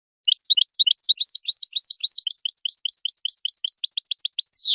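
European goldfinch singing: a fast, unbroken run of short, high twittering notes, about eight a second, ending in a quick downward slurred note that cuts off suddenly.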